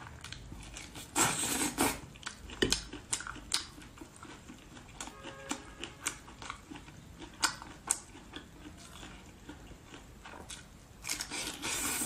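Eating sounds of braised prawns being bitten and chewed, with scattered small clicks and two louder, longer sounds of about a second each, one early and one near the end.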